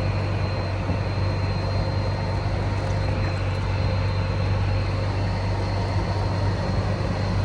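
EZGO TXT golf cart's 298cc single-cylinder gas engine running steadily with a constant low hum, freshly repaired with a new carburetor and fuel pump and now running after a no-start.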